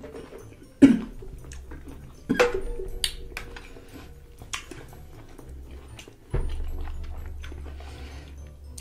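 Close-miked chewing of a large pickle, with two sharp crunches in the first few seconds and smaller wet clicks between. About six seconds in, a dull thump is followed by a low rumble.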